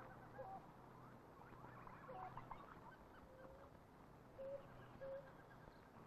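Near silence: faint film-soundtrack hiss with a few short, faint bird-like calls scattered through it.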